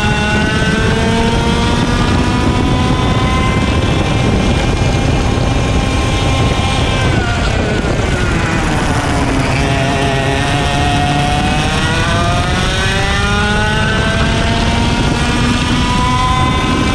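IAME X30 125cc two-stroke kart engine running at race pace: its pitch climbs steadily along a straight, falls sharply about seven seconds in as the kart slows for a corner, then climbs again as it accelerates out and down the next straight.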